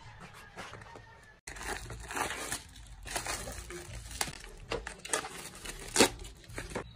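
Packaging being handled: crinkling and rustling with many sharp crackles and tearing sounds, and a louder crack about six seconds in.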